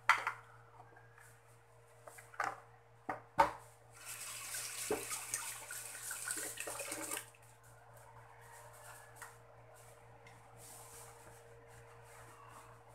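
A few sharp knocks of dishes on a kitchen counter, then a kitchen tap running for about three seconds, over a steady low hum.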